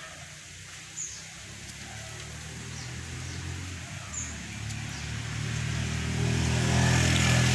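A motor vehicle's engine approaching, a low hum growing steadily louder through the second half. Two short high chirps sound about one and four seconds in.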